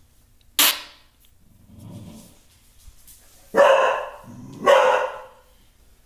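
A bulldog gives a low grumble, then barks loudly twice, about three and a half and four and a half seconds in. A short, sharp sound is heard about half a second in.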